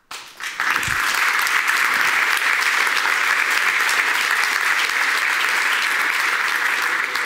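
Audience applauding. The clapping starts about half a second in and then holds steady.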